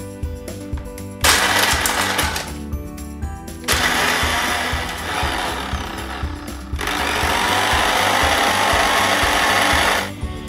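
Electric blender grinding dry Oreo biscuit halves into fine crumbs. It runs in three bursts: a short one about a second in, then two longer runs back to back, the last stopping near the end.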